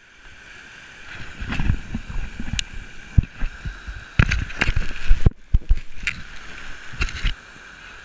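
Steady rush of a waterfall and stream, with a run of irregular thumps and sharp knocks on the camera as it is handled and moved, loudest about four to five seconds in.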